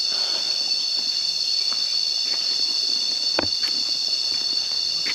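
Chorus of forest insects, cicadas and crickets, singing steadily in several high, constant tones. A few short knocks are scattered through it, the clearest about three and a half seconds in.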